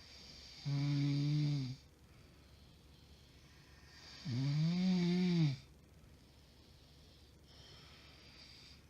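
A woman with sleep apnea snoring loudly in her sleep: two long pitched snores about three and a half seconds apart, the second rising and then falling in pitch, followed by a quieter breathy exhale near the end.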